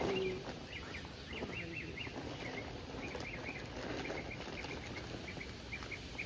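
Birds chirping: many short, quick calls repeating several times a second, over steady outdoor background noise, with a brief louder sound at the very start.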